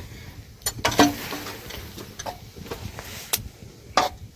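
A handful of irregular sharp clicks and knocks, a second or so apart, over a faint steady background.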